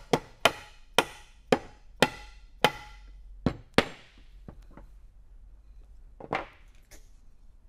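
Soft-faced mallet striking a wooden crosspiece to seat it in the chair frame: about eight sharp knocks, roughly two a second, over the first four seconds. Then one duller thud about six seconds in as the mallet is set down on the workbench.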